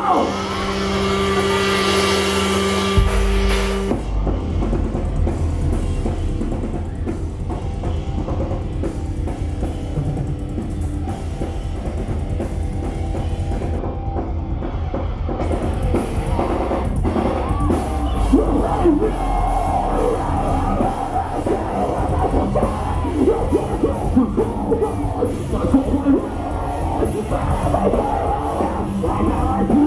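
Live metalcore band playing loudly, heard from within the crowd. A held chord rings for the first few seconds, then heavy drums, bass and distorted guitars come in about three seconds in.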